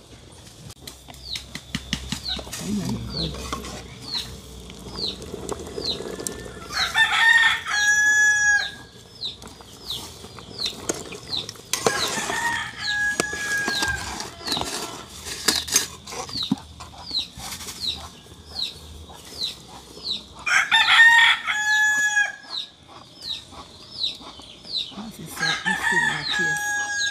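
A rooster crowing four times, each crow a drawn-out call of a second or more. Behind it a high chirp repeats about twice a second, and there are a few sharp knocks.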